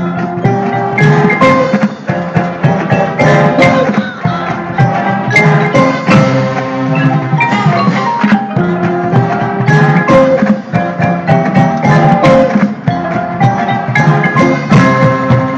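Marching band percussion section playing a busy, rhythmic passage: front-ensemble marimbas and other mallet keyboards play quick pitched notes over sharp drum strikes.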